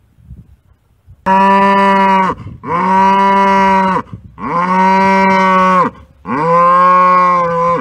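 Holstein-type cow bellowing four times in quick succession, each call long and loud at a steady pitch before breaking off. Repeated bellowing like this is a known sign of rabies in cattle, the disease this cow is shown for.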